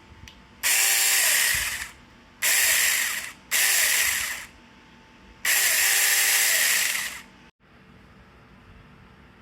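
Battery-powered 6-inch mini chainsaw running in four short bursts, its motor pitch rising as each burst starts and falling as it stops. The third burst follows close on the second, and the last is the longest.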